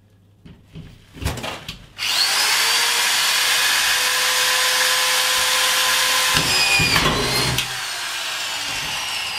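A Metabo SE 4000 corded drywall screwdriver with a collated screw strip, set to a deeper depth stop. After a few knocks as it is set in place, it starts about two seconds in with a steady whine. A few seconds later a rough, lower grinding comes as a screw is driven through an OSB panel into a metal stud, and the tool then runs on at a lower pitch.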